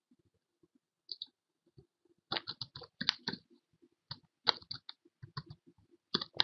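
Typing on a computer keyboard: a couple of key or mouse clicks about a second in, then a run of quick keystrokes from about two seconds in.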